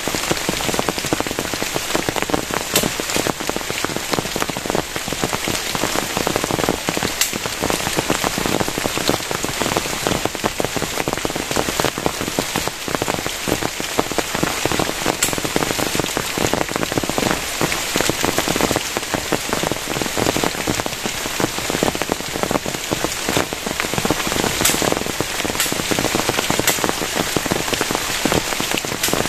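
Heavy rain falling steadily, a dense even hiss scattered with the sharp ticks of individual drops striking close by.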